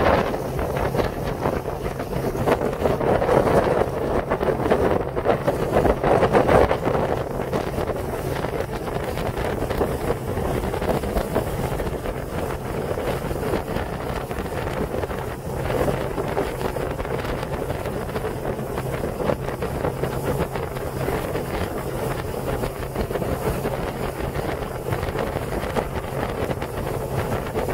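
Motorboat under way: the boat's engine drones steadily beneath wind buffeting the microphone, which is heavier for the first seven seconds or so.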